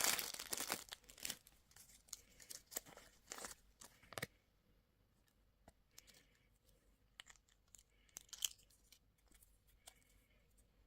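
Candy wrapper being torn open and crinkled, loudest in the first second, then scattered softer crackles that thin out to faint rustles after about four seconds.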